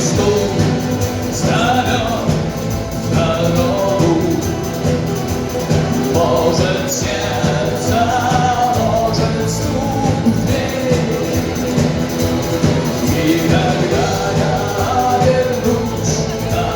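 Live rock band music: guitars and a steady beat, with a wavering melody line on top.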